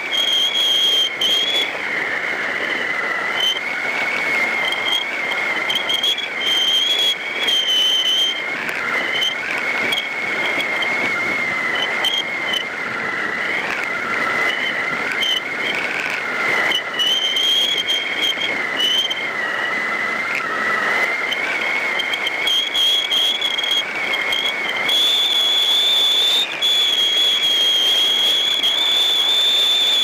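Rushing wind on a hang glider in flight, with a whistling tone that wavers in pitch and a higher whistle that comes and goes, growing steadier and louder near the end.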